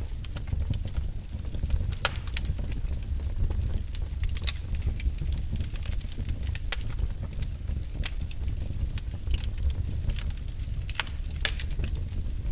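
Fireplace fire crackling, with irregular sharp pops and snaps over a steady low rumble.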